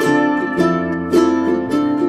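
Background music: light plucked-string melody with a steady beat.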